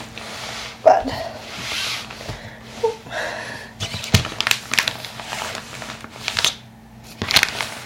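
Handling noise of a reborn baby doll and its clothes on a changing pad: fabric rustling with scattered clicks and taps, and a thump about four seconds in.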